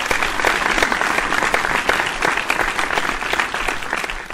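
Applause: many hands clapping in a dense, continuous patter.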